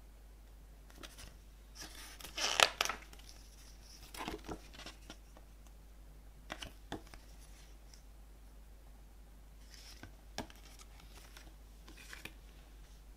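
Pages of a glossy CD booklet being turned and handled by hand: a series of short paper rustles and flicks, the loudest about two and a half seconds in.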